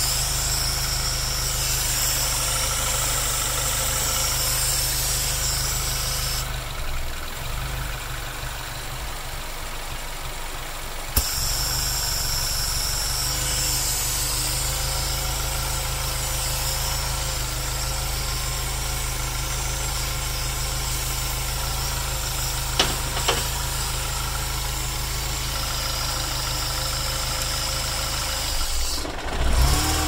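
MINI four-cylinder petrol engine idling roughly, with dual oil catch cans fitted in its crankcase ventilation. A steady low engine hum, with one sharp click about a third of the way through and two more close together later on.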